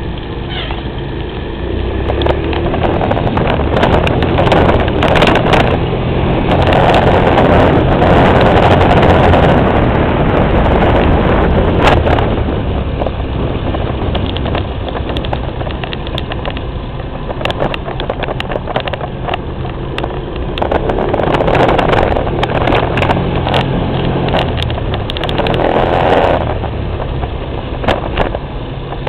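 Ride noise from a slowly moving vehicle, with wind rumbling on the microphone. It swells louder twice, about a third of the way in and again near the end, with scattered knocks and clicks.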